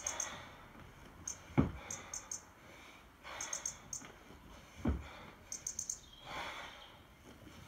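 Rhythmic one-arm kettlebell jerks with a 24 kg kettlebell: a dull thud about every three seconds as the bell drops back into the rack on the body, with forceful breaths between reps.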